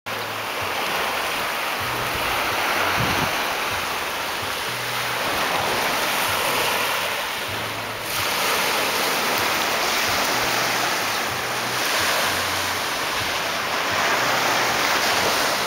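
Small waves breaking and washing up on a sandy beach in a steady, swelling rush, with wind on the microphone.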